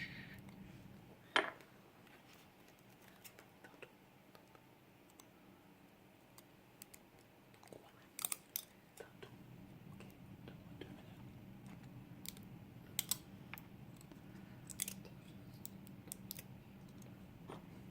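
Sparse small clicks and taps of a dimple lock and lock-picking tools being handled, with one sharper click about a second and a half in and short clusters of clicks around the middle and later on, over a faint steady hum.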